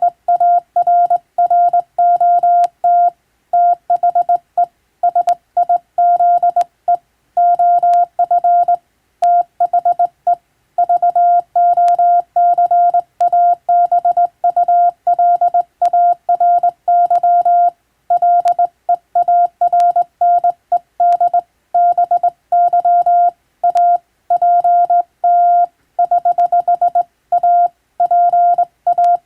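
Morse code sent by hand on a telegraph key, heard as a single steady beep tone switching on and off in short dots and longer dashes, with brief pauses between letters and words.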